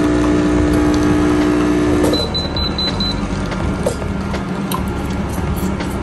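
Laekerrt 20-bar espresso machine's pump humming steadily as it pulls a single shot, cutting off about two seconds in. A quick run of short high beeps follows.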